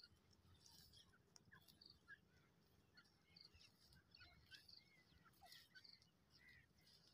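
Near silence: faint rural outdoor ambience with scattered, faint bird chirps.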